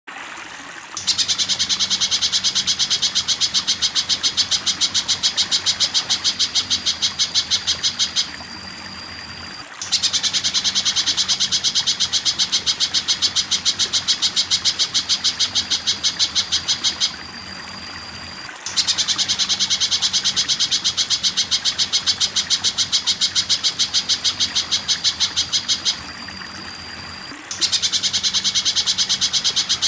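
Spiderhunter song: long runs of rapid, high repeated notes, each about seven seconds long and ending in a short held whistle. The run repeats four times in near-identical form with brief pauses between.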